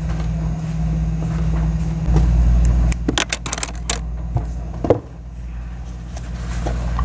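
Samsung Galaxy A51's cardboard retail box being handled for opening: scratchy clicks and scrapes as its seal is picked at, about three to four seconds in, and a single knock near five seconds. A steady low hum underlies it.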